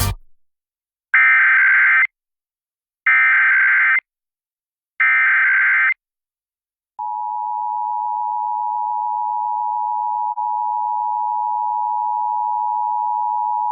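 Three Emergency Alert System SAME end-of-message data bursts, each about a second long and a second apart, marking the end of the required monthly test message. About seven seconds in, a steady EAS attention tone starts, with a brief dip just after ten seconds in.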